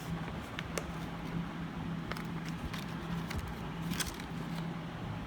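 Scattered light clicks and crackles from handling a small object, over a steady low hum.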